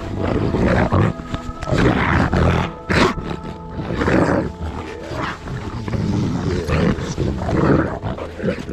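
Big Blue Bay Shepherd making a string of rough, growly vocalizations, about one a second: its happy sound.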